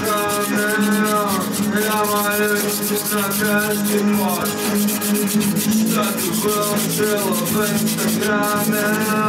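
Soft pastel stick scrubbed rapidly back and forth on paper, a dense run of fast scratchy strokes, with a song playing underneath.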